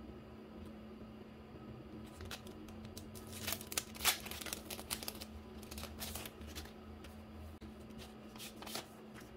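Clear plastic packaging sleeve crinkling and crackling in the hands as its flap is opened and a pack of sticker sheets is slid out, with the sharpest crackles in the middle and one more near the end. A faint steady hum runs underneath.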